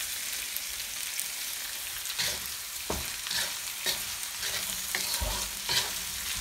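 Sliced onions with green chillies, ginger and garlic sizzling in hot oil in a frying pan as they are sautéed, with a wooden spatula stirring and tossing them in repeated scrapes and light knocks against the pan.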